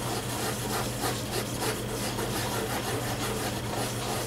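Fingertips rubbing the damp paper layer off a reverse image transfer on a painted coaster, a rhythmic rubbing of about three strokes a second that rolls the leftover transfer paper away in little bits.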